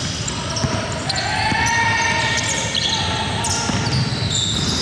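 Basketball bouncing repeatedly on an indoor court during a game.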